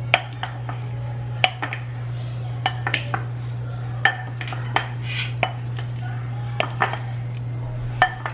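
Wooden spoon tossing broccoli in a white ceramic bowl, knocking against the bowl's sides in about a dozen irregular clacks, over a steady low hum.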